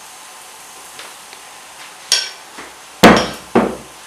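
Three sharp knocks of hard objects, each with a short ringing tail: one about halfway through, then the loudest about a second later, and a third soon after it.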